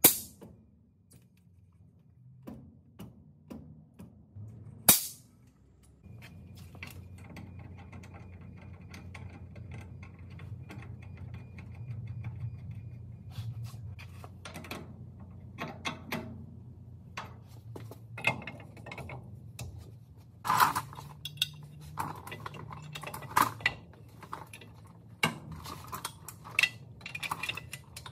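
Scattered metal clinks and knocks of tools and heavy truck axle parts being handled, over a steady low hum. A sharp knock about five seconds in is the loudest.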